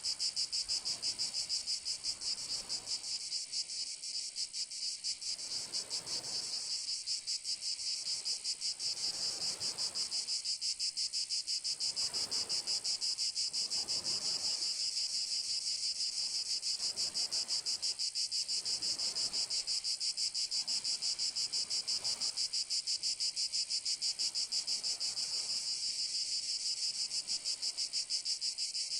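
A chorus of cicadas singing without a break, a high, dense buzz with fast, even pulsing. A faint low wash swells and fades underneath every couple of seconds.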